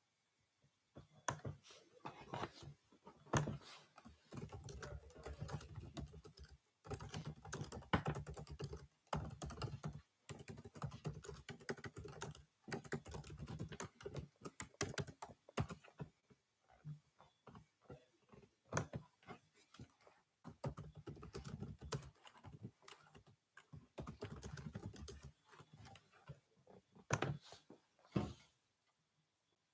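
Typing on a computer keyboard: irregular runs of key clicks with a few short pauses.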